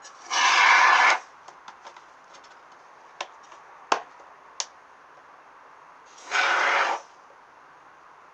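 Aerosol can of expanding foam spraying: two hissing bursts, the first about a second long near the start and a shorter one near the end. A few light clicks and taps come in between.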